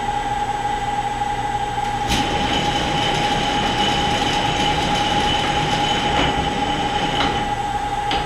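Clausing 1500 lathe's 7.5 hp three-phase motor running on a variable frequency drive, with a steady high whine. About two seconds in, a sharp click comes and a louder whirring with a higher tone joins; a few more clicks follow.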